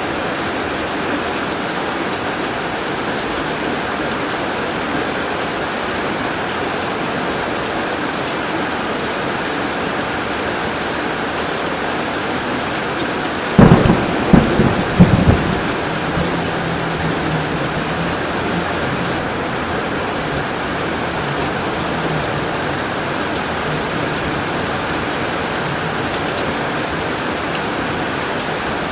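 Steady heavy rain drumming on a tin roof. About halfway through, a thunderclap breaks in as three or four sharp cracks within two seconds, then a low rumble that dies away over several seconds.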